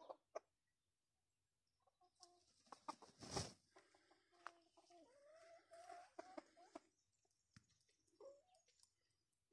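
A chicken clucking and murmuring softly in a run of low, wavering calls, starting about two seconds in and trailing off about seven seconds in, with a few faint calls near the end. A short, loud burst of noise cuts across the calls about three seconds in.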